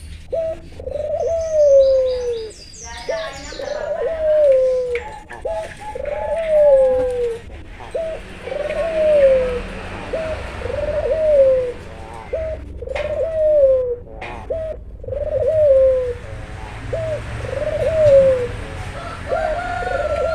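Barbary dove (puter) cooing over and over. Each phrase is a short rising note followed by a longer coo that falls in pitch, repeated steadily. A few higher chirps come early on.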